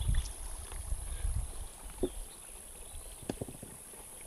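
Wind buffeting the microphone as a low, uneven rumble that eases off after about a second and a half, leaving faint outdoor background with a few small clicks.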